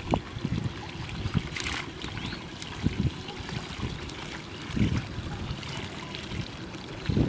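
Shallow muddy water splashing and trickling as a plastic basket is dipped in and lifted out, water pouring back through its mesh in uneven splashes.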